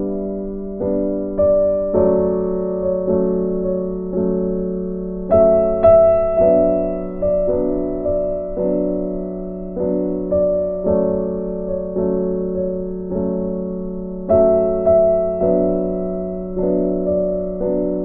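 Background music: a piano playing a slow, gentle melody, each note struck and then fading away.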